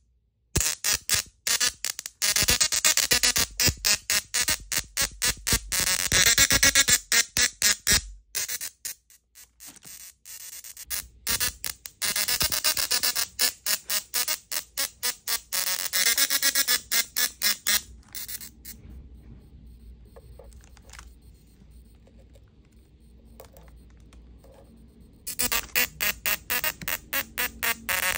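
Small tabletop musical Tesla coil playing a tune through its sparks: a harsh buzzing tone pulsed in short rhythmic notes. It drops to a much quieter stretch past the middle, and loud notes resume near the end.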